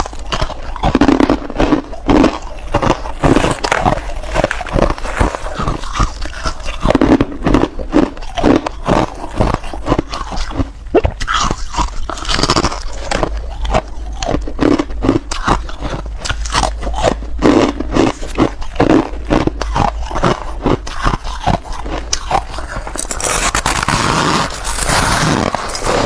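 Close-miked bites into soft white ice: a rapid run of sharp, crisp crunches, one bite after another, with a denser, hissier crunch near the end.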